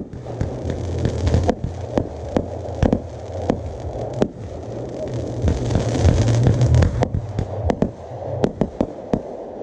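Fireworks display: aerial shells launching and bursting, an irregular string of sharp bangs and crackles, about twenty in all, over a steady low rumble.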